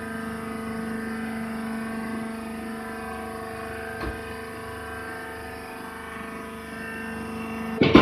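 Wood chip baler's hydraulic power unit running with a steady, even hum, with a light click about four seconds in and a sudden loud knock near the end.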